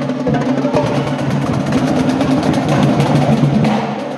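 Drums playing a fast rhythm of rapid strokes.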